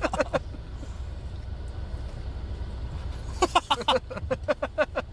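A vehicle's engine running with a steady low rumble, heard from inside the cab while it is in reverse. Voices come in briefly at the start and again from about three and a half seconds in.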